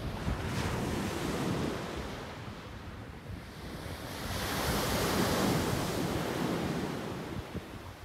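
Sea waves breaking and washing onto the shore, with a bigger wave surging to its loudest about halfway through. Wind buffets the microphone underneath.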